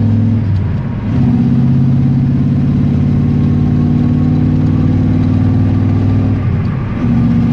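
Ford 302 V8, fed by a lawn mower carburetor, accelerating hard through a four-speed manual. The engine note is steady and loud, with two brief drops in revs and volume, about half a second in and near the end, as gears are changed.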